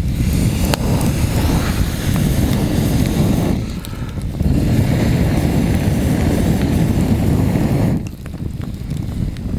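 Wood campfire burning under a hanging cast-iron pot, with scattered crackles, under a loud low rushing noise that comes in two long stretches of three to four seconds each and drops away briefly between them and near the end.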